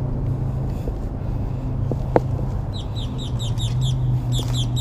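A bird calling in quick runs of short, high chirps, about five a second, starting a little under three seconds in, over a steady low rumble. A single sharp click about two seconds in.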